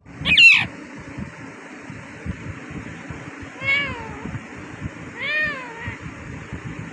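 Parrot calling: one loud, shrill screech near the start, then two shorter, meow-like calls that rise and fall in pitch, a little over a second apart in the second half.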